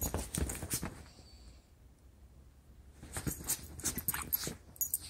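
A Yorkshire terrier and a kitten play-fighting on bedding: scuffling and rustling of sheets in two bouts, one at the start and one from about three seconds in, mixed with the small dog's vocal sounds.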